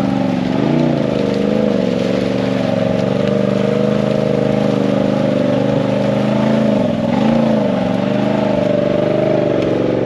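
Lifted Polaris RZR side-by-side's engine running at low, steady revs as it crawls through mud, with a brief rise in revs about a second in and a dip and recovery about seven seconds in.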